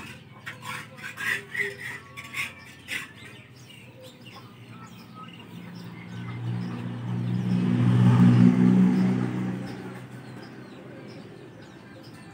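Metal spatula clicking and scraping in a wok in the first few seconds. Then a motor engine swells, is loudest about eight seconds in, and fades away, like a vehicle passing by.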